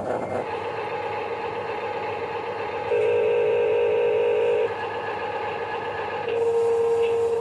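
Electric motor of a radio-controlled construction model whining steadily, getting louder twice as it is put under load: once about three seconds in for nearly two seconds, and again from about six seconds in.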